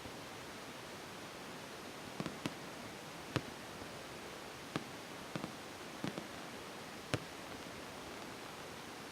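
Scattered sharp pops of fireworks, some in quick pairs, over a steady hiss.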